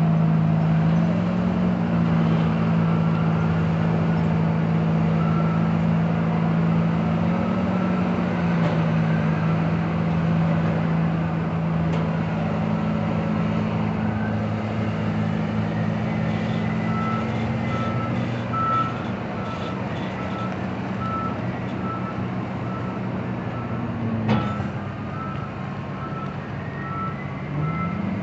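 Komatsu PC2000 mining excavator's diesel engine running under digging load, its drone stepping up and down in pitch as the work changes. From a little past halfway a backup alarm beeps steadily, about once a second. A single sharp knock comes near the end.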